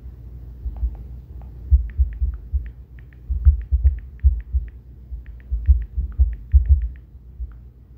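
Irregular low thumps, many paired with light sharp clicks, coming in quick uneven runs.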